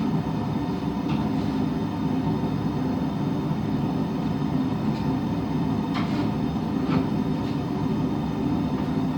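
A running forge giving off a steady, even rumbling roar, with a few faint clicks over it.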